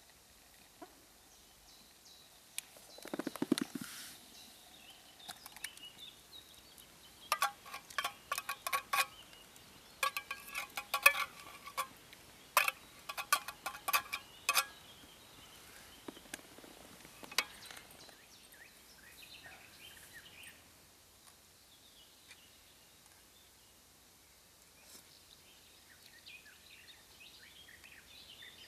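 A run of sharp, ringing metallic clinks in quick clusters, like lightweight camp cookware and a utensil knocking together, after a brief rustle. Faint birdsong behind.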